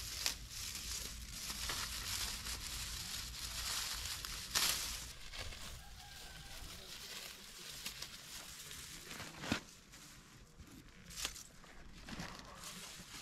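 Soft rustling and crinkling with a few sharp clicks, the loudest about halfway through.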